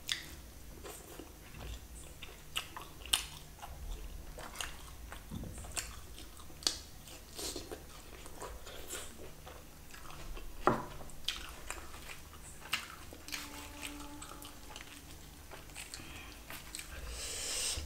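Close-miked eating sounds: chewing and biting chicken curry and roti, with many short wet mouth clicks and smacks.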